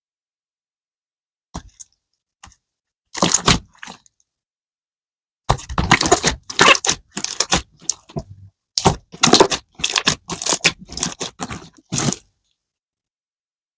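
Slime being squished and pressed by hand, giving a run of irregular crackly crunches. A few scattered crunches come first, then a dense run from about five and a half seconds in that stops shortly before the end.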